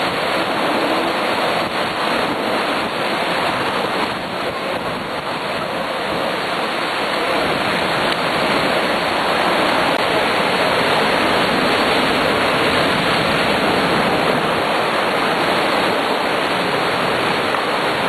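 Steady rushing of water, a loud even noise with no break, swelling slightly after about four seconds.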